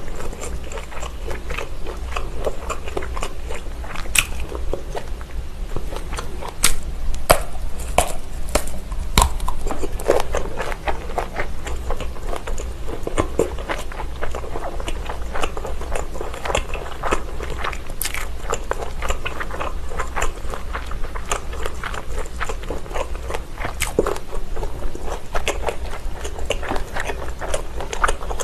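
Close-miked biting and chewing of Vienna sausages: steady moist mouth clicks, with a few louder sharp clicks in the first ten seconds and again around eighteen seconds in.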